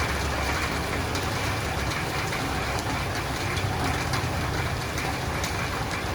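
Steady rain falling on a roof and windows, an even hiss with scattered sharp ticks of individual drops and a steady low rumble underneath.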